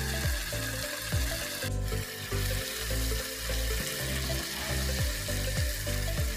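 Chicken pieces sizzling in hot oil in a frying pan with sautéed aromatics, with a steady hiss, while a wooden spatula stirs them.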